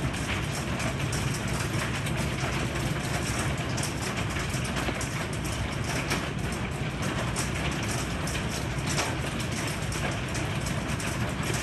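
Heavy rain mixed with hail pelting a wooden deck: a dense, steady hiss with a low rumble under it and many sharp ticks of hailstones striking the boards and railings.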